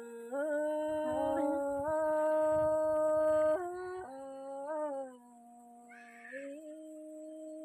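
Unaccompanied Tai folk singing (hát Thái): a single voice holds long, drawn-out notes that step and glide between pitches. The loudest, highest note is held in the middle, and a quieter sustained note carries on near the end.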